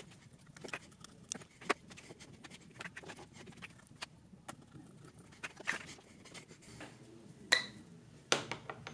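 Scissors snipping small paper labels: a run of irregular sharp snips and light taps on a cutting mat, with one louder, briefly ringing clink about seven and a half seconds in.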